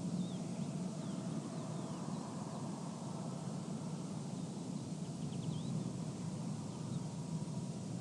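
Desert ambience: a steady low rumble of light wind mixed with generators and construction equipment working in the distance, with a few faint, short high chirps scattered through it.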